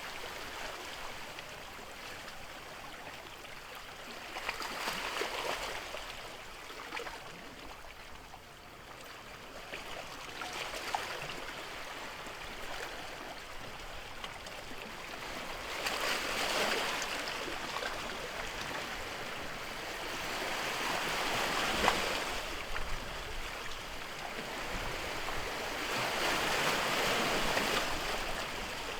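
Ocean waves washing in: a steady hiss of surf that swells louder about every five to six seconds between quieter stretches.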